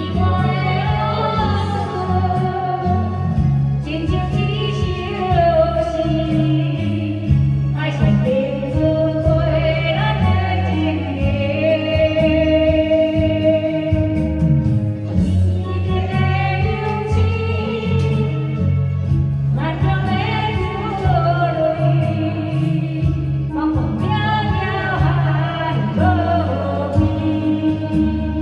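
A song playing: a singer's voice in long phrases with held, wavering notes over steady backing music with a strong bass line. This is a karaoke-catalogue track.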